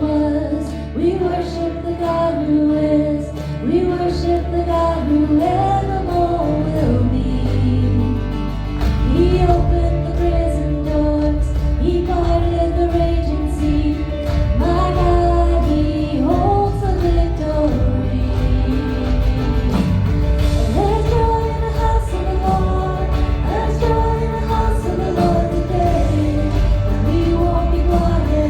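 A contemporary Christian worship song: voices singing a melody over a full band with a steady bass line, the bass getting fuller about nine seconds in.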